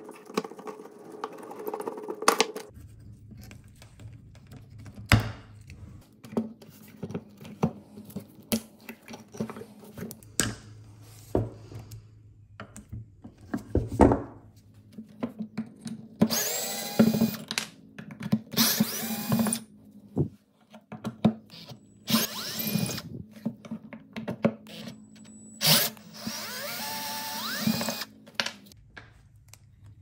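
Clicks and knocks of small metal parts being handled and unscrewed, then a cordless drill/driver whirring in several short bursts on screws in the old fire alarm's rusty metal base.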